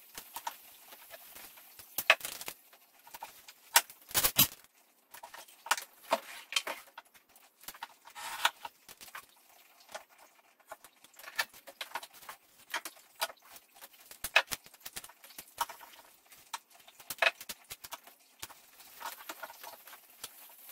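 Paper templates and tape rustling and crinkling as they are handled and stuck down onto wood, with many irregular small clicks and crackles and a few louder ones about two and four seconds in.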